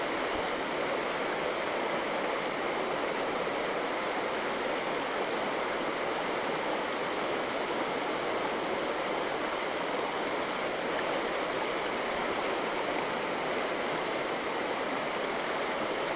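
Flowing river water rushing steadily, an even hiss without breaks.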